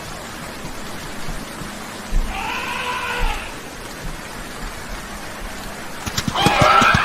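An animal gives one call of about a second, its pitch rising then falling, over a steady hiss. Near the end a louder animal call begins.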